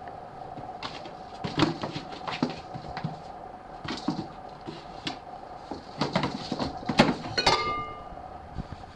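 A cat pawing and scratching at a cardboard shoebox through holes in its lid: irregular taps, scrapes and knocks on the cardboard, with louder bumps of the box about seven seconds in and a brief squeak just after. A faint steady hum runs underneath.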